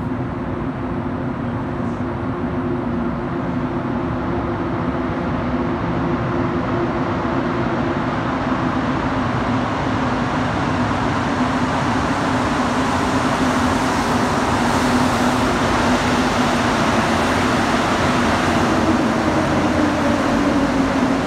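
Montreal Metro MPM-10 Azur rubber-tyred train approaching through the tunnel and pulling into the station. It grows steadily louder, with a steady motor hum whose pitch drops slightly near the end as the train slows.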